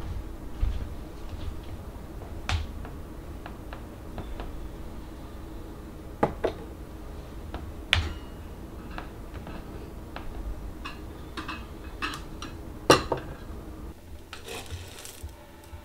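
Scattered clinks and knocks of kitchen items handled on a counter during coffee preparation, the loudest about three-quarters of the way through. Near the end comes a short rustling rattle as coffee beans are scooped from a glass jar.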